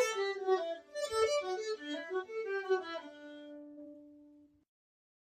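Viola playing a short bowed melodic phrase, ending on a long held low note that fades out about a second and a half later.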